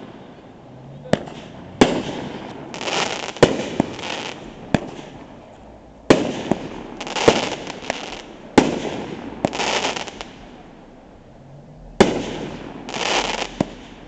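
Aerial fireworks going off: about eight sharp bangs at irregular intervals of one to two seconds, each followed by roughly a second of hissing rush. There is a brief lull before one last bang and rush near the end.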